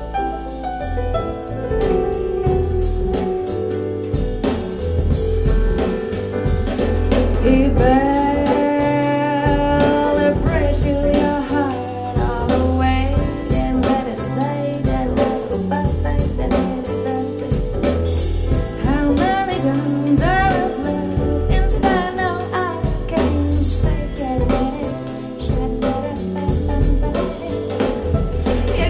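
Live recording of a female singer with band (drum kit, bass, guitar) played back through KEF R3 Meta bookshelf speakers driven by an SMSL AO300 class D integrated amplifier. The voice comes in with a long held, wavering note about eight seconds in.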